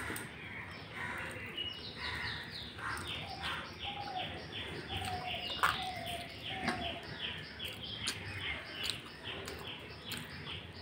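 A bird chirping in a rapid series, short falling notes at about three a second, with a few lower falling whistled notes. A sharp click sounds a little past halfway.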